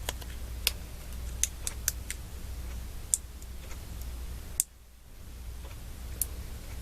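Scattered light clicks and ticks of a fingernail picking at the edge of a thin paper sticker, working to lift it off its backing.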